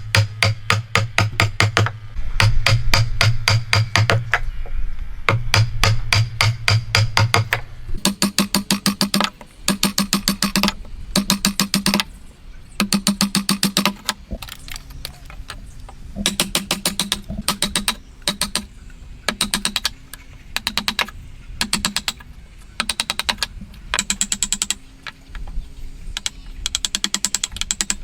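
Bursts of rapid, evenly spaced mechanical clicking, each lasting a second or two with short pauses between.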